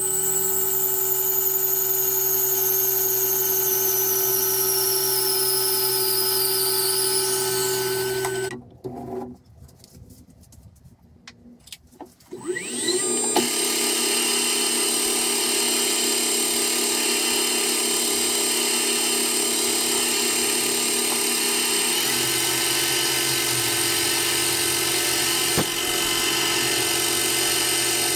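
Metal lathe running and turning brass: a steady motor and gear whine, with a high tone that slides down in pitch over the first several seconds. The running stops for about four seconds near the middle, then picks up again and goes on steadily, with one sharp click near the end.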